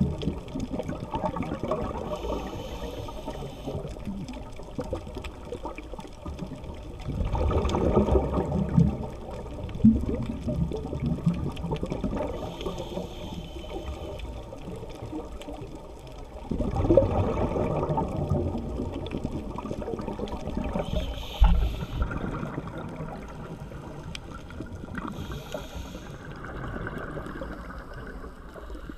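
Scuba diver breathing through a regulator underwater: two louder surges of exhaled bubbles about nine seconds apart, with a quieter hiss and rush of water in between.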